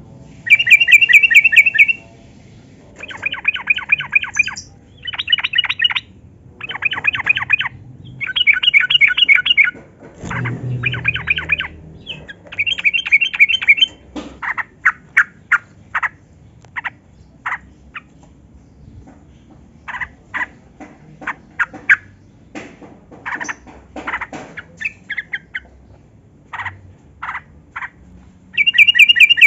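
Yellow-vented bulbul calling: loud, rapid chattering phrases about a second long, repeated with short gaps. About halfway through they give way to short, separate sharp notes.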